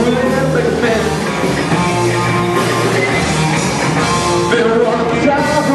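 Live rock band playing loud electric guitar over drums, with sustained, bending guitar notes and no vocal line.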